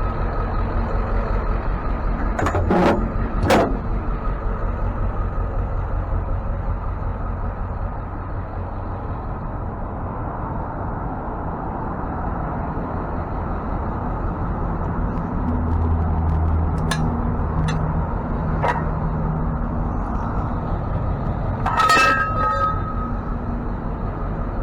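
Tow truck engine running steadily with a low rumble, its pitch shifting a little partway through, with a few sharp clicks early on and a short high squeal near the end.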